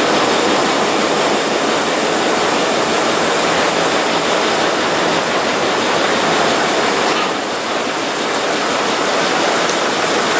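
Engine of a Class M10A (WDM3D) diesel-electric locomotive running close by: steady, loud engine noise with a strong high hiss over it.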